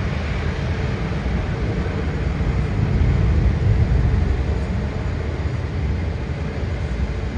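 Jet airliner engines, a steady low rumble that grows louder about three seconds in and then eases off.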